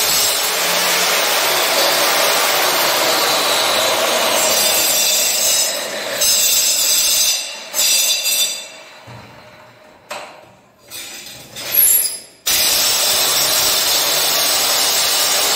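Handheld power tool cutting, running steadily and loudly. It slows and stops about six seconds in, with a couple of short bursts, then starts up again abruptly and runs on.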